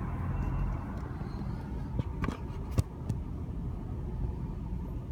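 Car's engine and road noise heard from inside the cabin: a low, steady rumble, with four short clicks between about two and three seconds in.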